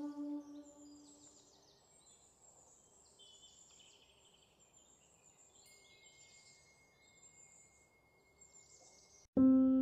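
A held, softly pitched music tone fades away, leaving a faint background of high bird chirps and trills. Near the end, piano music starts suddenly.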